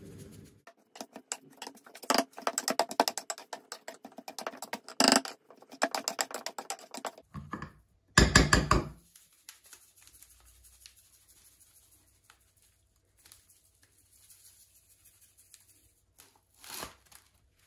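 Metal potato masher pressing boiled potatoes in a granite-coated pan: a quick, uneven run of clicks and knocks for several seconds, then one loud knock-and-scrape about eight seconds in. After that, only faint rustles and a short scrape near the end.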